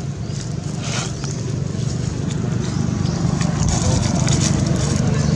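A steady low rumble that grows louder, with scattered crackles and a brief rustle of dry leaves about a second in, as macaques move over the leaf-strewn ground.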